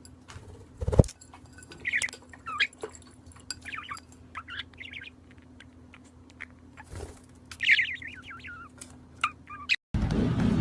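Small bird chirping in short, quick, wavering bursts, over a steady low hum. A loud thump comes about a second in, and there are a few sharp clicks.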